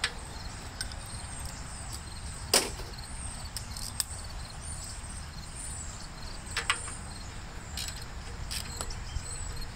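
A handful of sharp, separate metallic clinks of a wrench working on the nuts that hold a Gravely tractor's tank and shroud assembly, the loudest about two and a half seconds in. Crickets chirp faintly and steadily in the background.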